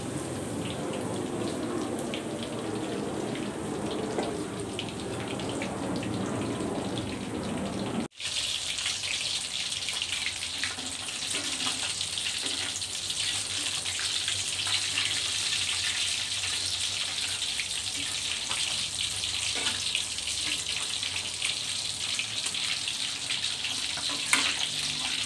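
Hot oil sizzling steadily in a wok as battered catfish and loose crispy batter deep-fry until dry and crunchy. The sound cuts out for an instant about eight seconds in, and there is a short metal knock near the end.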